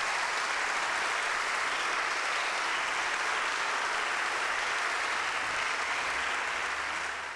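Audience applauding: steady clapping from a large seated crowd that fades out at the very end.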